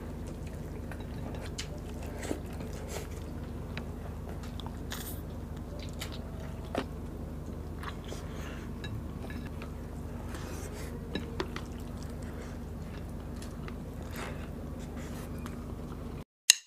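Close-up eating sounds of hand-eaten chicken adobo and rice: quiet chewing with scattered small mouth clicks and smacks over a steady low hum. Near the end the hum cuts out abruptly and a couple of sharp whacks sound.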